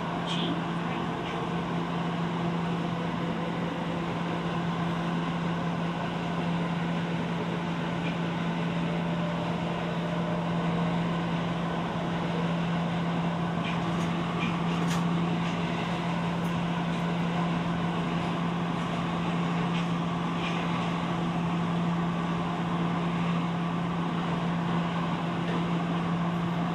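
Tokyo Metro Ginza Line 1000-series subway train running through a tunnel, heard from inside the car: a steady rumble of wheels and running noise with a constant low hum.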